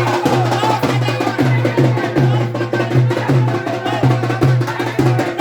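Fast, dense drumming with music: many rapid drum strokes over a low bass note that pulses about twice a second, with a wavering melody above.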